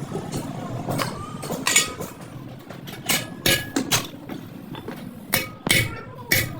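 Sharp metallic knocks and clinks of tools striking metal parts, about seven irregular strikes, some with a brief ringing, over a steady low rumble of traffic.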